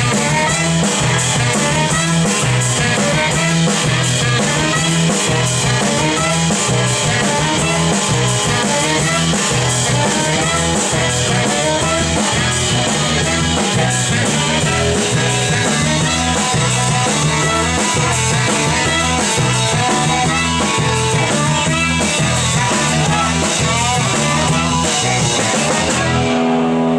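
Live rock band playing, with electric guitar and a drum kit keeping a steady beat. Near the end the drums stop and held notes ring on as the song closes.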